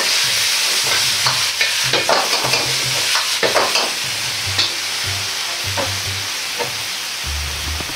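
Stir-fry sizzling in a carbon-steel wok over a gas flame, with a metal wok ladle scraping and knocking against the wok as the sauce-coated food is tossed. The sizzle eases a little in the second half.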